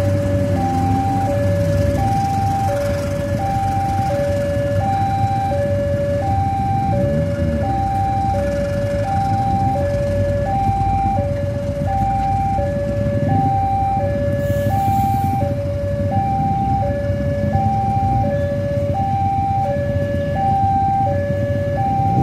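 Railway level-crossing warning alarm sounding a steady electronic two-tone alternation, high then low, each tone lasting under a second. Beneath it is the rumble and rail noise of a passing long-distance passenger train's carriages.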